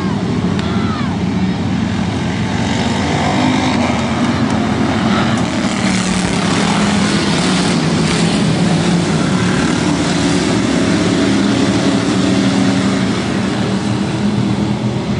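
Pure stock dirt-track race cars running at full throttle in a pack, a loud, continuous mix of engines. It swells about six to eight seconds in as a car passes close by.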